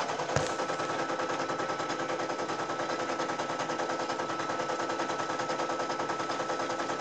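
Embroidery machine stitching steadily, a fast even chatter of needle strokes with a steady hum underneath. A light knock about half a second in.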